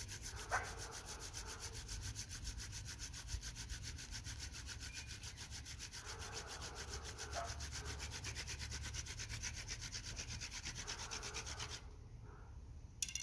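Hand drill fire-making: a wingstem spindle spun fast between the palms, drilling into a trumpet creeper hearth board with a steady, rapid rubbing rhythm as the friction works up a coal. The rubbing stops shortly before the end, and a single sharp click follows.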